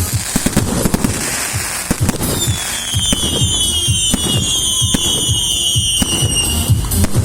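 New Year fireworks: a dense run of booms and crackling bangs. From about two seconds in until near the end, several shrill whistles sound together, slowly falling in pitch.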